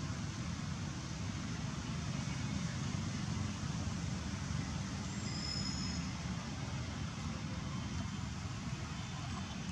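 Steady outdoor background rumble with a fainter hiss, unchanging throughout, with a brief faint high whistle about halfway through.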